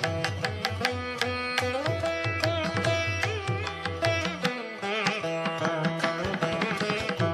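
Instrumental background music in an Indian classical style: a plucked string melody with sharply attacked notes that bend in pitch, over low hand-drum beats.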